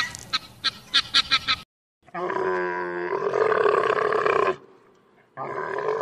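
Helmeted guineafowl calling in a fast run of sharp, short notes, about six a second, that stops after about a second and a half. After a brief gap comes a long pitched animal call lasting about two and a half seconds, and a second one begins about five seconds in.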